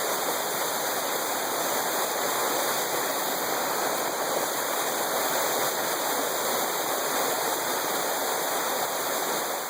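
A waterfall: the steady, even rush of falling water, unchanging throughout.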